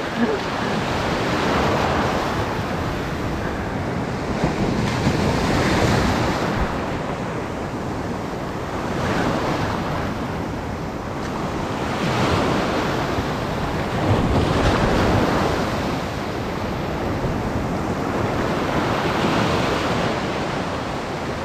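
Sea surf breaking and washing on the shore in a steady rush that swells and eases every few seconds, with wind buffeting the microphone.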